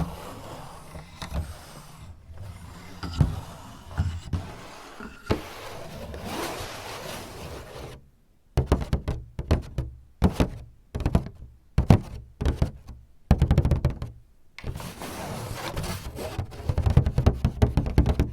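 Fingers tapping and scratching on a paper shoji sliding door and its wooden frame. Scattered knocks and rubbing come first; from about halfway through there are quick runs of taps with brief pauses between them.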